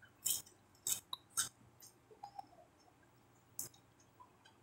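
Close-up mouth sounds of chewing raw watercress: a handful of sharp, crisp, wet clicks and crunches, most in the first two seconds and one more near the end, with quiet gaps between.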